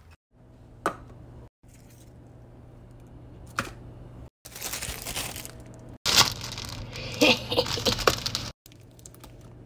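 A clear plastic cup handled on a countertop gives a couple of sharp clicks, then a clear cellophane treat bag crinkles loudly as it is pulled down over the cup. The sound breaks off abruptly several times.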